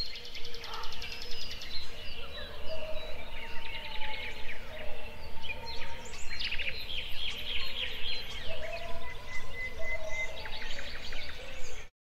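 Many birds calling at once: a dense mix of short high chirps and trills, with a few lower drawn-out calls, over a steady low rumble. It cuts off suddenly near the end.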